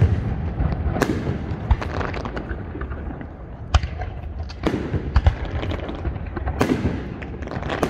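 Aerial fireworks going off: a string of sharp bangs from shells bursting, about half a dozen spread irregularly, each with a short echoing tail, and crackling in between. The bangs come in a brief lull about two to three seconds in.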